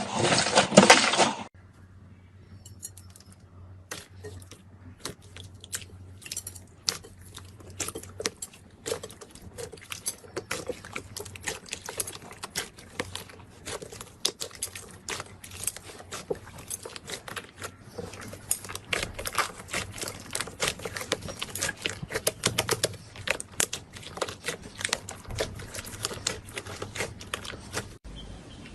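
Crunchy slime being worked by hand: a dense, continuous run of small crackles and pops. A louder, denser stretch at the very start cuts off abruptly after about a second and a half.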